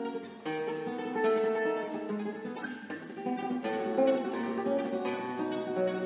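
Classical guitar with its two lowest strings tuned down to D and G, playing a melody in fast tremolo over plucked bass notes, ringing on in a reverberant church.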